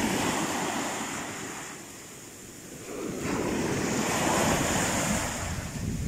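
Small waves washing up a sandy beach and drawing back: the wash fades about two seconds in and swells again with the next wave.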